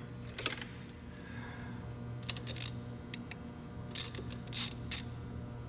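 Short metallic clicks and scrapes of hand work on a gearbox shaft that is stuck tight, coming in scattered bunches with a quick cluster near the end, over a steady low hum.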